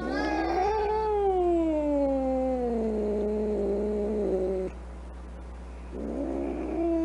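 An angry cat yowling: one long drawn-out call that rises briefly, then slides slowly down in pitch for about four and a half seconds. A second yowl starts near the end.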